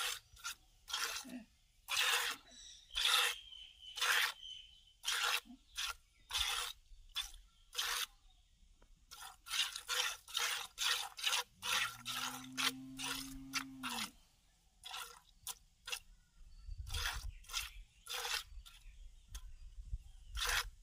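Hand-milking a cow into a plastic bucket: short hissing squirts of milk, about one or two a second, with a brief pause past the middle. One short low moo sounds about twelve seconds in.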